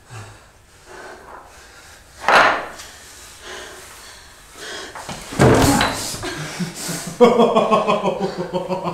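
Two heavy impacts in a physical scuffle, about two and five seconds in, the second louder and deeper, then a drawn-out vocal groan near the end.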